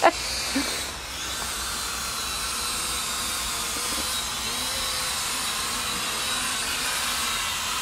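Small quadcopter drone's propellers and motors whining steadily as it hovers and flies overhead: a continuous high-pitched whine.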